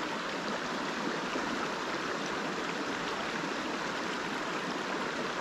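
Steady rushing of a flowing river.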